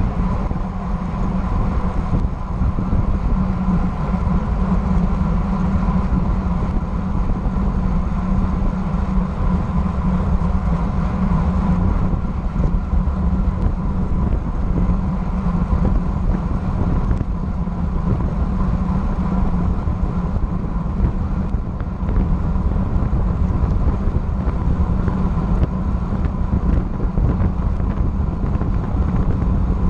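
Steady wind rush over a bike-mounted action camera's microphone on a road bike travelling at about 27 mph, with tyre and road noise underneath.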